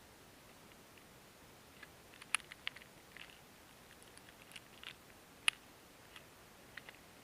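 Scattered faint clicks and taps of a .22 pistol and its ammunition being handled between shots, about a dozen light ticks, the sharpest about two and a half and five and a half seconds in.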